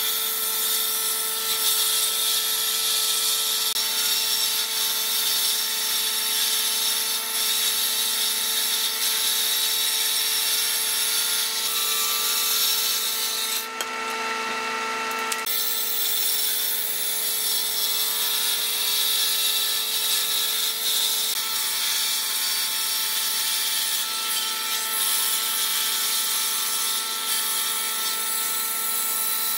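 Woodworking combination machine running without a break: a table saw ripping a board, then a jointer planing one, a steady machine hum under a continuous high hiss of cutting wood. The sound changes briefly about halfway through.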